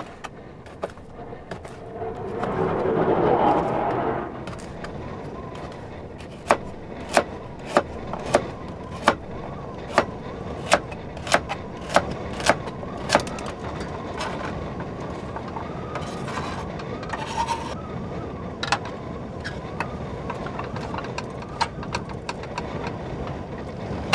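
A knife chopping on a cutting board, about a dozen even strokes, over a steady background hum. A brief rush of noise comes a few seconds before the chopping starts.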